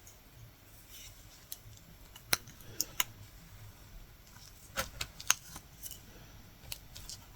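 Latch hook tool working yarn into mesh canvas: about ten small, sharp, irregular clicks and snaps as knots are hooked in.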